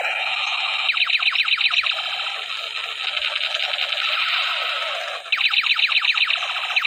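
Battery-powered toy M16 light gun playing its electronic machine-gun sound effect: a steady buzzy electronic tone with bursts of rapid electronic shots, about nine a second, around one to two seconds in and again from about five seconds in.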